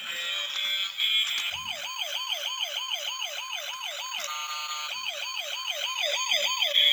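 Electronic siren-like warble starting about a second and a half in, its pitch sweeping up and down about three times a second. It breaks off briefly midway, then resumes.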